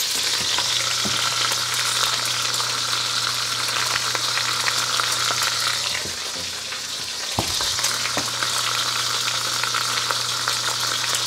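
Beef chuck roast searing in hot oil in a heavy pot: steady sizzling and crackling over a low steady hum. Near the end a wire whisk stirs beef stock in a saucepan.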